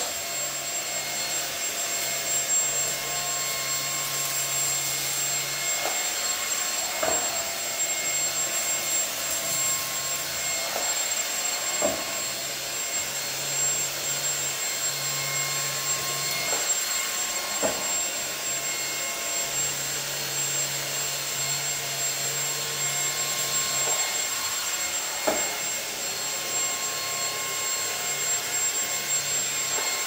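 YOKEKON cordless stick vacuum running steadily with a high motor whine while its mop head is pushed back and forth over tile floor. A low hum comes and goes in stretches, and there are a few faint knocks.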